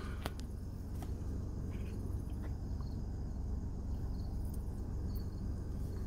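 Faint crickets chirping over a steady low hum inside a parked car's cabin.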